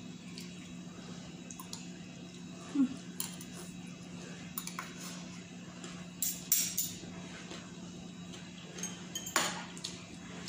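Metal fork and spoon clinking and scraping against ceramic plates and bowls during a meal: scattered sharp clinks, a cluster of them in the middle and a loud one near the end, over a low steady hum.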